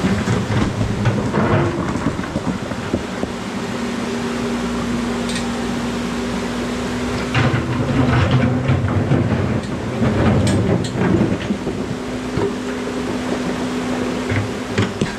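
Menzi Muck spider excavator running, its engine and hydraulics giving a steady hum over a low rumble that swells as the machine works. Sharp knocks of stone come at scattered moments as the bucket moves among boulders.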